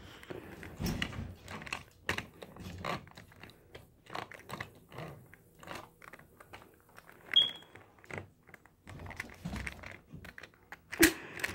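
Small toy engines and plastic track pieces being handled and pushed by hand, giving irregular light clicks and knocks. A brief high squeak comes about seven seconds in, and a sharper click just before the end.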